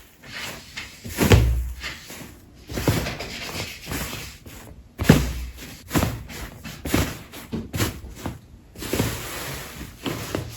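Slime being squished and pressed by hand: irregular wet squelches, pops and crackles, with the loudest thumps about a second and a half in and about five seconds in.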